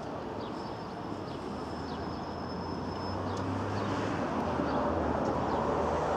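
Outdoor traffic noise: a steady rumble that slowly grows louder as a vehicle approaches. A thin high whine runs for a couple of seconds starting about half a second in, with a few faint chirps.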